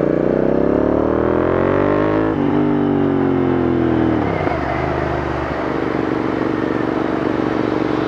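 Royal Enfield Interceptor 650's parallel-twin engine through a Red Rooster aftermarket slip-on exhaust, accelerating on the road. The note climbs for about two seconds, drops back, holds, then falls about four seconds in and settles to a steady cruising note.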